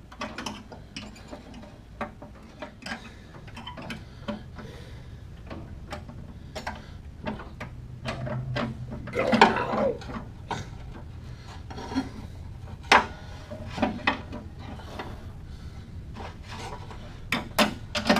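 Metal clicks, clinks and rubbing as a tension spring is worked by hand onto the blade-engagement cable of a riding mower deck, with a louder, longer scrape about halfway through and a quick run of sharp clicks near the end.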